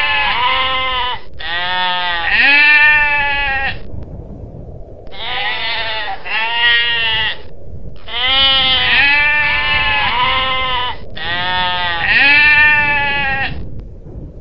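Long-tailed goral bleating: five runs of loud, goat-like bleats, each lasting about two to three seconds with short pauses between, each note rising and falling in pitch.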